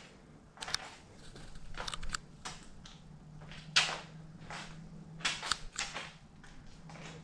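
Scattered irregular clicks, taps and rustles from a handheld camera being carried around, with steps, over a faint steady low hum.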